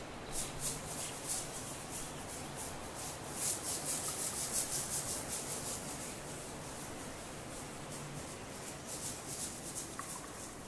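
Bag of citrine crystals shaken close to the microphone: soft, crisp rattling and rustling in quick strokes, busiest in the first half and again near the end, over a steady background hiss.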